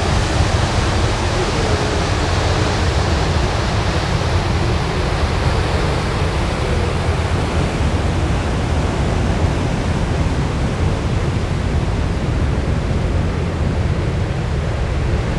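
Steady rushing noise of wind and sea passing a moving ship, heaviest in the low end, with no distinct events.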